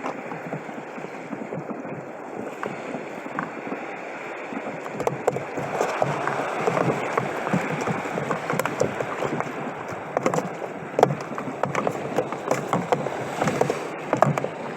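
Sea water sloshing and splashing against a kayak, with scattered irregular clicks and knocks; it gets louder about five seconds in.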